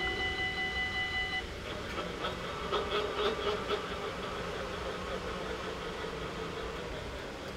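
Level-crossing warning bell ringing steadily, then cutting off about one and a half seconds in as the train clears. The barrier booms then rise with a steady motor hum and a few clicks from the mechanism, over the low sound of idling cars waiting at the crossing.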